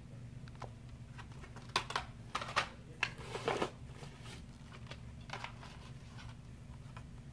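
Light clicks and crinkling rustles of packaging and objects being handled, loudest from about two to four seconds in, over a steady low hum.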